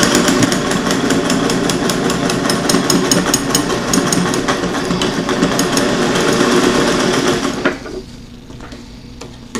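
Vintage electric sewing machine running steadily at a fast, even stitching rhythm as it sews a hem through folded fabric, then stopping with about two seconds to go.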